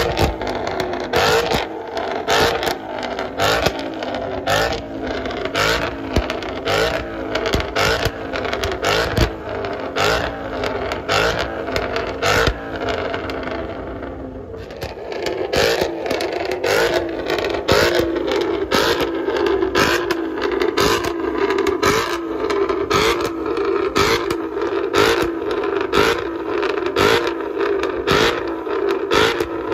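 Ford Mustang engine and exhaust revved hard while parked, with sharp pops about twice a second throughout. Partway through the revs dip briefly, then settle into a steadier held rev.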